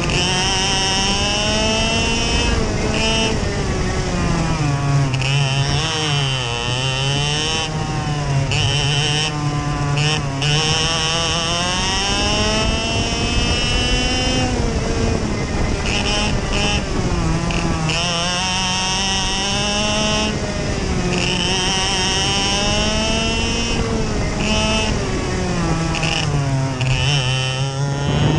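TaG kart's 125cc two-stroke engine at racing speed, heard from on board: its pitch sags as the kart slows for each corner and climbs again on the straights, about five times.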